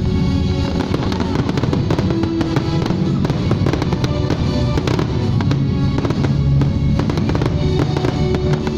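Aerial fireworks shells going off in quick succession, a dense run of bangs and crackles, over loud music playing.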